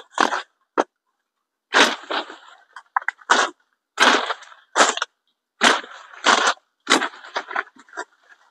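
Coffee-tree branches being lopped and broken off: a quick irregular series of about a dozen sharp woody cracks and snaps, with leaves rustling.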